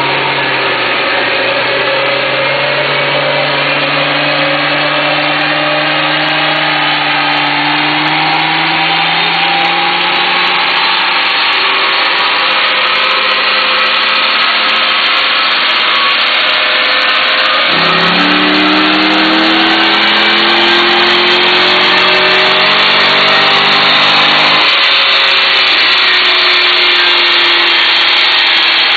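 Chevrolet Corvette's V8 pulling on a chassis dynamometer under load, with a loud rushing from the spinning tyre and rollers. Its pitch climbs slowly and steadily, drops sharply at an upshift after about 18 seconds, climbs again, and drops at a second shift after about 25 seconds.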